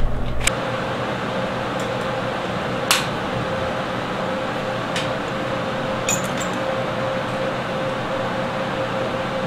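Steady fan-like hum with a constant pitched tone. A few light metal clinks come from steel frame parts being handled and clamped, about three seconds in and again around five and six seconds.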